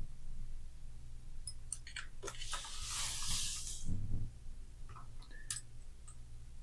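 Small clicks and taps of a hex driver and plastic and aluminium suspension parts being handled on a radio-controlled buggy chassis while setting the anti-roll bar, with a brief rustling hiss about two and a half seconds in and a low thump near four seconds. A steady low hum runs underneath.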